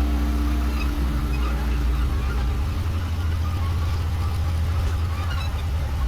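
Diesel engine of a heavy earthmoving machine running steadily, a low rumble.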